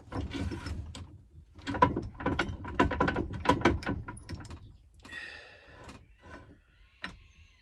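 Cigar pen parts being pressed together in a pen press: a run of rapid clicks and knocks for about four seconds, a brief squeak about five seconds in, and a single sharp click near the end as the parts seat tight.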